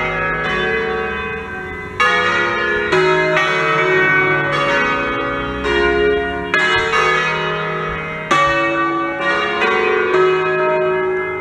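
Full swinging peal of six bronze church bells tuned in D-flat, cast by Fratelli Ottolina in 1928. The strokes come at irregular moments and overlap, each bell ringing on long after it is struck.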